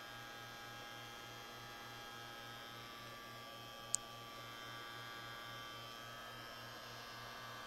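Steady electrical hum from the lab equipment: several high, whining tones over a low buzz that pulses several times a second. A single short, sharp click comes about four seconds in.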